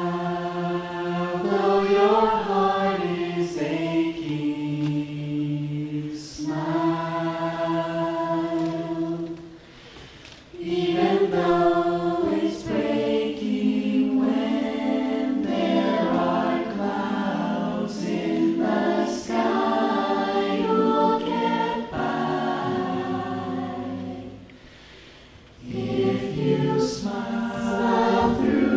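A small choir singing a slow song in close harmony without accompaniment, holding long chords. The singing breaks off briefly twice, about a third of the way in and again near the end, between phrases.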